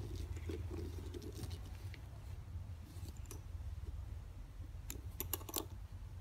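Silver metal zipper pull and slider on a black GG-canvas messenger bag being handled by gloved hands: soft rustling, then a quick run of small metallic clicks about five seconds in, over a steady low hum.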